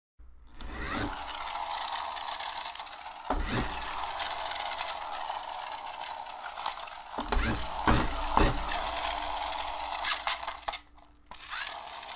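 Small electric motor of a toy off-road truck whirring steadily as it runs, with several knocks and clicks from the toy being handled. The whirring cuts out about eleven seconds in.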